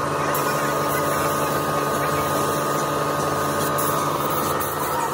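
Compressed-air paint spray gun hissing steadily as it sprays, over a constant machine drone with a hum of several steady tones.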